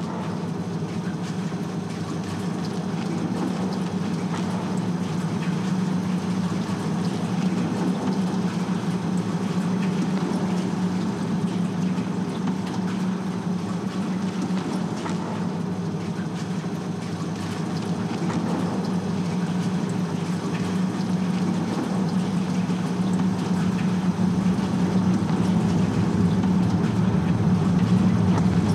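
Heavy industrial machinery running: a steady low hum under a dense rumbling clatter, slowly growing louder.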